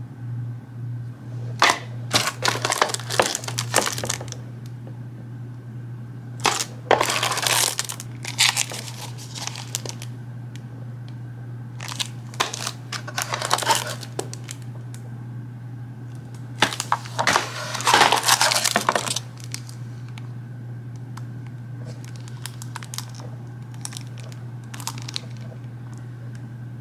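Cellophane wrapping on boxed eyelash extension trays crinkling as the packs are picked up and handled. It comes in four loud bursts of a few seconds each, then fainter rustles, over a steady low hum.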